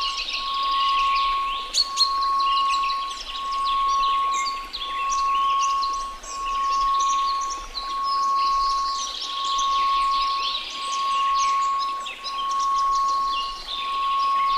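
A steady 1098 Hz pure tone, swelling and dipping about every one and a half seconds, laid over a recording of birds chirping and a faint hiss of white noise.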